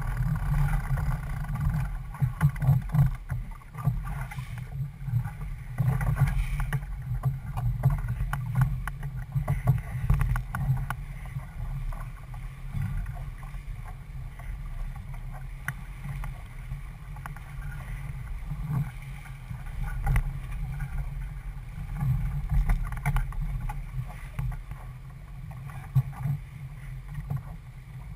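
Wind buffeting the deck-mounted microphone over the rush and slap of choppy water along the hull of a C&C 31 sailboat under sail; a gusty, uneven low rumble with no engine.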